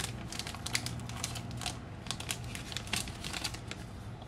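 Thin clear plastic protective film being peeled off the back of a new smartphone, crinkling and crackling in quick irregular snaps.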